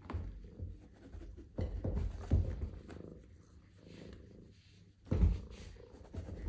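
Domestic cat purring, a low pulsing rumble, with soft thumps and fabric rustling as a hand scratches at the upholstered chair back and the cat paws at it. The loudest thumps come about two seconds in and again about five seconds in.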